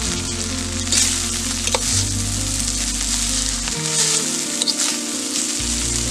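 A metal ladle stirring and scraping cooked rice in a hot metal pot: a steady sizzling hiss with scattered sharp scrapes. Background music of sustained low notes plays under it, changing pitch every couple of seconds.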